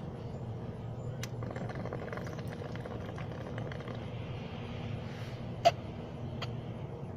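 Water bubbling in a wooden bong as it is smoked, with a breathy draw. There are a few sharp clicks, one about a second in and two near the end, the middle one loudest, over a steady low rumble.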